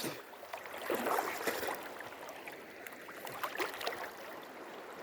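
River water running, with small splashes and trickles of water about a second in and again near the end.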